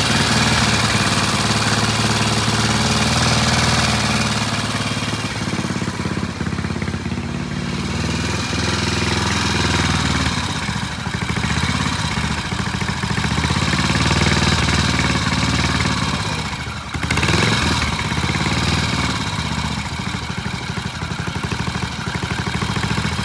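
Vintage Triumph single-cylinder motorcycle engine idling on a stand, its idle speed shifting as the carburettor is adjusted with a screwdriver. The engine note dips briefly about two-thirds of the way through, then picks up again.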